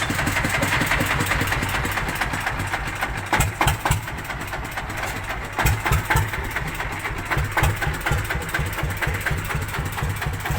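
Dongfeng 33 hp single-cylinder diesel engine of a small ledok dump truck running steadily with an even chugging beat, with a few louder knocks near the middle.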